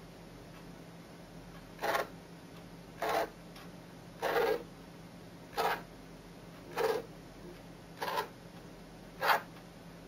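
Two hobby RC model servos of a homemade servo pen plotter whirring in short bursts, seven in all, about one every 1.2 seconds, as each move swings the linkage arms and carries the pen to the next corner of the drawing.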